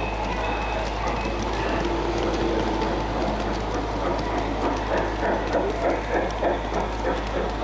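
LGB G-scale model trains running past on brass track, with the rolling noise of the wheels building to a rhythmic clatter of about three beats a second as a steam locomotive and its wagons pass close, about five seconds in.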